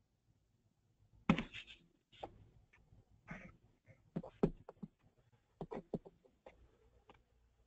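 Faint, irregular clicks and taps close to the microphone, like handling at a computer desk. The loudest is a knock with a short rustle about a second in.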